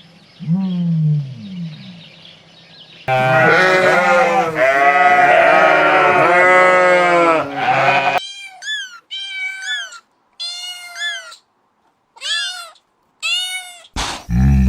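A run of animal calls: a few low calls, then about five seconds of loud overlapping bleating from goats or sheep, then six short, high, falling mews like a kitten's. A loud, deep call starts right at the end.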